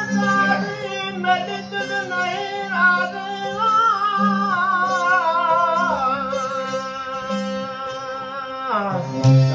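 Men singing long, ornamented held notes with a wavering vibrato over the steady drone of several strummed tamburos, the long-necked Sindhi lutes. Near the end the sung phrase slides downward and breaks off.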